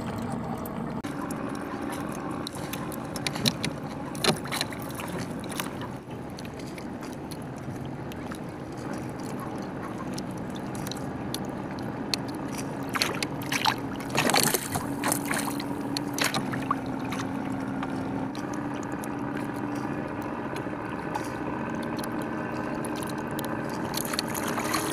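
A boat engine running steadily with an even hum that shifts slightly in pitch partway through. A few sharp knocks come near the start and in a cluster about two-thirds of the way through.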